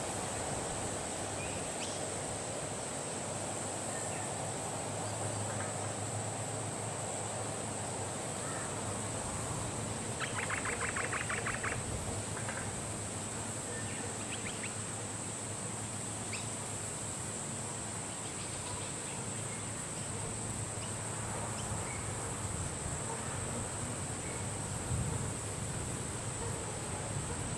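Wind noise, with scattered short bird chirps and a rapid rattling bird trill about ten seconds in, over a steady high-pitched whine.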